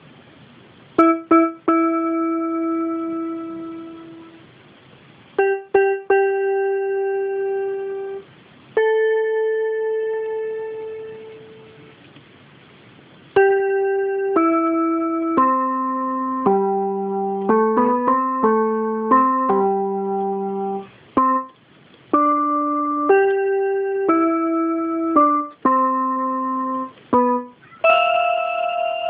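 Portable electronic keyboard, on a piano voice, playing a simple one-note-at-a-time melody: three long held notes a few seconds apart, stepping up in pitch, then a quicker run of shorter notes about halfway through.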